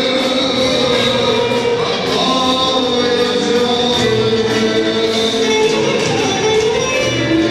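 Music with singing, held melodic notes over a steady accompaniment.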